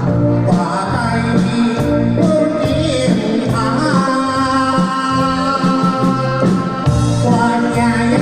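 Taiwanese enka song sung over instrumental accompaniment with a steady beat, the singer holding one long note in the middle.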